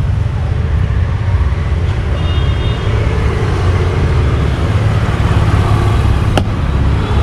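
Steady low rumble of street traffic noise, with a single sharp click about six seconds in.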